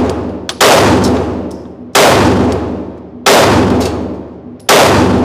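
Four 9mm pistol shots from a Glock 43X, fired at a steady slow pace about one and a third seconds apart. Each shot rings out and dies away in the reverberation of an indoor shooting range.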